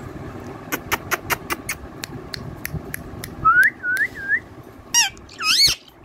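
Indian ringneck parakeet making a quick run of sharp clicks, then three short rising-and-falling whistles, and two short wavering calls near the end.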